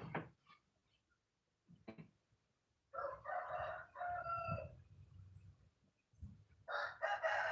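A rooster crowing twice: a multi-part crow a few seconds in and another near the end. Before them come two short knocks of particleboard panels being handled.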